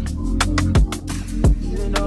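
Background music: an electronic beat with sharp percussion hits and two deep bass kicks that slide down in pitch.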